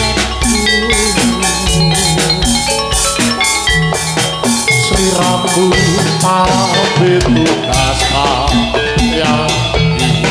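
Gamelan music for a jathilan dance: bright metallophones strike repeating melodic notes over steady, loud drumming.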